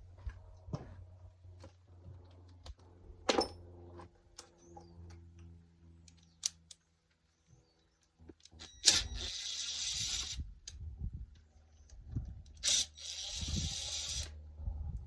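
Chainsaw parts being handled on a workbench: light clicks and knocks, and a metal part clinking and ringing about three seconds in. Later come two hissing blasts of about a second and a half each, about four seconds apart, over a low steady hum.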